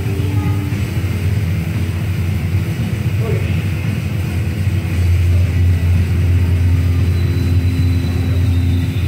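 Steady low whirring drone of a fan, which gets somewhat louder about five seconds in.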